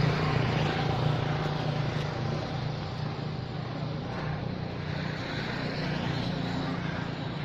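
A steady low motor hum with an even hiss over it.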